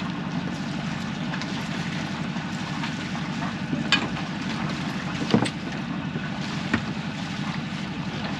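Sailing yacht's inboard engine running steadily at low revs with a fast, even putter, manoeuvring out of a berth. Three short knocks are heard in the second half, the loudest about five and a half seconds in.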